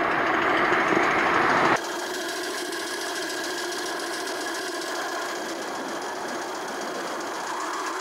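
Homemade steam motorcycle's steam engine running at speed with a rapid, even mechanical beat. A little under two seconds in the sound cuts abruptly to a quieter, hissier version of the same running.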